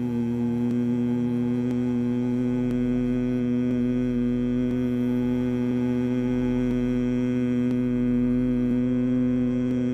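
A man humming one long, low, steady note with closed lips in bhramari (humming bee) breathing, held on a single slow out-breath.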